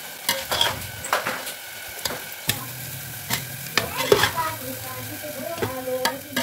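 A metal spoon stirring and folding boiled rice through cooked vegetables and omelette in a steel pot. The rice rustles, with irregular scrapes and clinks of the spoon against the pot.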